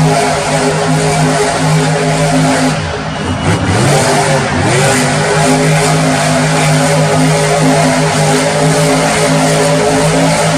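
Monster truck's supercharged V8 running at high revs with a steady note. About three seconds in, the revs drop sharply and climb back up within about a second and a half.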